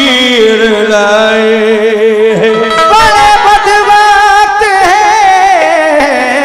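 Qawwali music: a singer holding long, wavering notes over harmonium accompaniment, the melody stepping up to a higher note about three seconds in.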